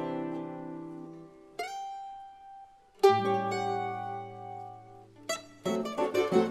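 A choro ensemble of bandolim, cavaquinho, acoustic guitars and pandeiro playing a polka, with a pause in the tune. A chord rings out and fades, a single plucked note sounds about a second and a half in, and a loud chord with a deep bass note rings at about three seconds. Near the end the full group comes back in with quick, rhythmic playing.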